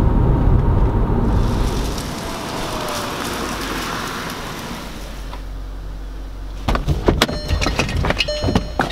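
Volkswagen sedan's road noise, a steady rush of tyres and wind, fading down over the first few seconds. About seven seconds in, a quick run of sharp clicks and short ringing tones.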